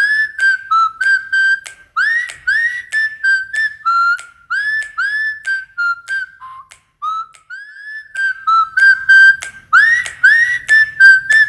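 A quick run of short, high whistled notes, many swooping upward at the start, about three a second, with a quieter, sparser stretch midway.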